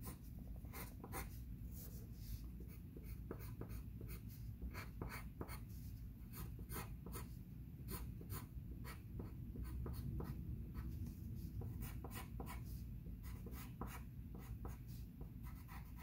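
Pencil scratching on drawing paper in quick, short, irregular strokes, a few a second, as part of the drawing is shaded darker.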